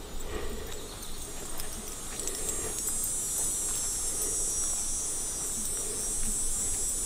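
Insects buzzing in a steady high-pitched drone that grows louder about two and a half seconds in, over faint rustling of footsteps on grass.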